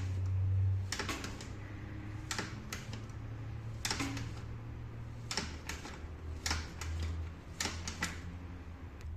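Sharp, irregular clicks and clacks, one or two a second and sometimes in quick pairs, over a steady low hum.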